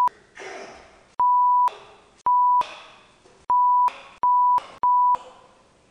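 A steady 1 kHz censor bleep that cuts in and out about six times, masking a boy's shouted swearing. Short bursts of his angry yelling, echoing in the room, come through between the bleeps.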